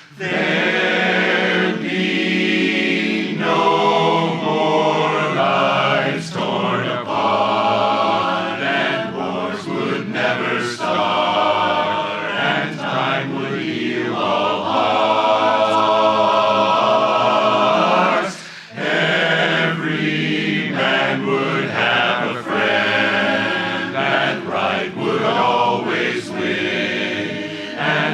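Barbershop chorus singing a cappella in close harmony, with a short break for breath about eighteen seconds in.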